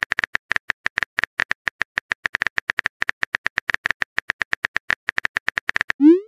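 Typing sound effect from a texting-story chat: a quick run of short keyboard clicks, several a second, then a short rising swoop near the end as the message is sent.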